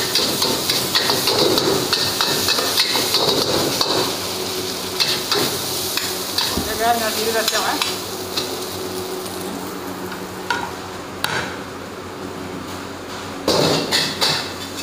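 Fried rice sizzling in a wok over a gas burner while a metal ladle and spatula scrape and clink against the pan as it is tossed. The sizzle dies down after about eight seconds, and a run of sharper clatters comes near the end.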